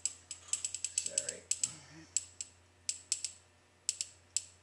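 Hand-held caulking gun with a tube of urethane, its plunger rod and trigger ratchet clicking as it is worked. The sharp clicks come singly and in short groups of two or three at uneven intervals.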